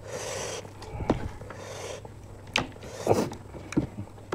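Close-up eating sounds: chewing and wet lip smacks, with a few sharp clicks, and fingers mixing rice on a plate, starting with a short breathy hiss.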